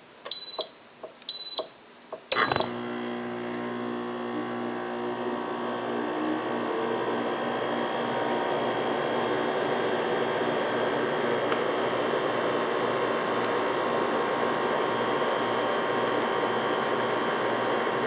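Three beeps from the electronic control pad of a Kenmore 5,200 BTU window air conditioner, then the unit starts with a click about two and a half seconds in and its compressor runs with a steady hum, which grows a little louder over the next few seconds.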